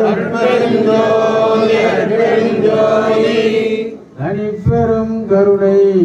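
A group of men chanting Tamil devotional verses together, a lead voice on a microphone carrying a long held melodic line. The massed voices drop out about four seconds in, leaving the single lead voice chanting on.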